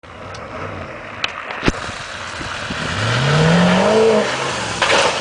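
An off-road vehicle's engine revving, its pitch rising steadily for about a second near the middle, with a few sharp knocks in the first two seconds and a burst of noise near the end.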